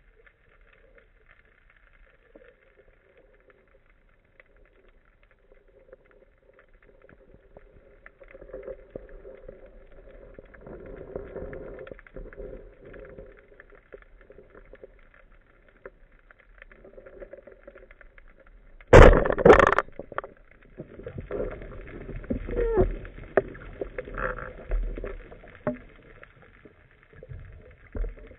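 Underwater, a band-powered speargun fires with a sharp double crack about two-thirds of the way through, after a stretch of faint steady hum. Irregular knocking and rattling of the shaft and line follow as the speared fish is brought in.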